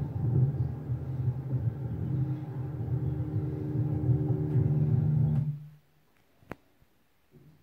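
Steady low rumble with a hum through a television's speaker, cutting off suddenly about five and a half seconds in; one sharp click follows.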